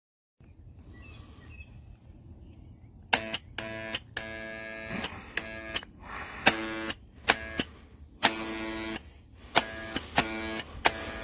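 Electric impact wrench fired in a run of short trigger bursts, about a dozen starting about three seconds in, each opening with a sharp click and buzzing briefly before stopping.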